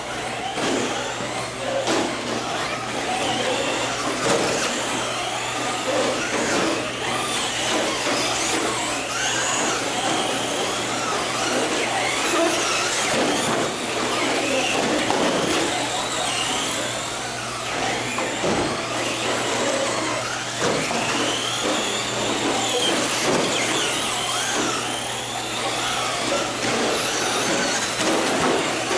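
Several Traxxas Slash electric RC short-course trucks racing, their motors whining and repeatedly rising and falling in pitch as they speed up and slow down, with occasional knocks.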